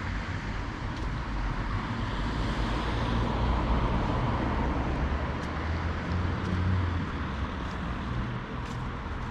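Road traffic: cars passing on a nearby street over a low rumble, their tyre and engine noise swelling about three to four seconds in and then fading.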